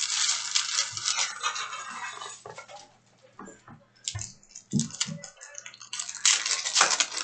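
Foil trading-card pack wrappers crinkling and tearing and cards sliding against each other as packs are opened and sorted, in two spells of rustling, one at the start and one near the end, with light clicks between.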